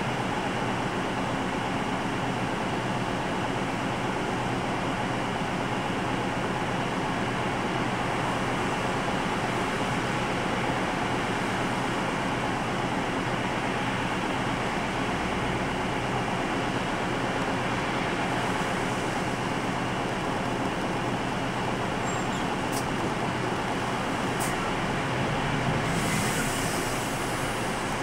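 Steady cabin hum of a Nissan Diesel Space Runner RA city bus with its diesel engine idling while stopped. Near the end the engine note swells and a brief hiss comes in as the bus starts to move off.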